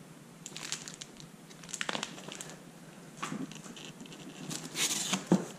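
Packing materials rustling and crinkling as a cardboard box is unpacked by hand: foam sheet, paper and plastic shifting in irregular bursts, quiet at first and getting busier and louder near the end.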